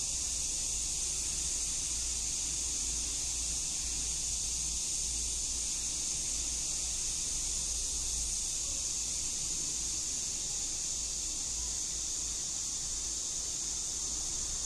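A steady high-pitched hiss over a low rumble, unchanging, with no speech or music.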